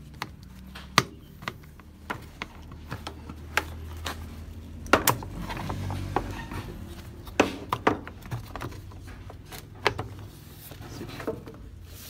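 Scattered sharp plastic clicks and knocks from a washing machine's control panel being screwed together and handled as it is fitted back on, with a low hum underneath for a few seconds in the middle.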